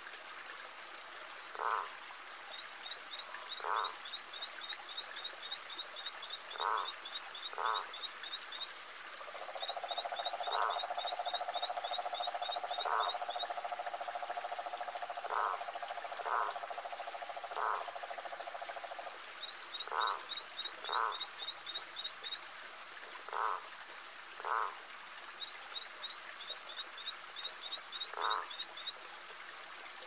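Frogs calling: short single croaks every second or two, and one long, low trill lasting about ten seconds in the middle. Runs of high, rapid ticking come and go over a faint steady hiss.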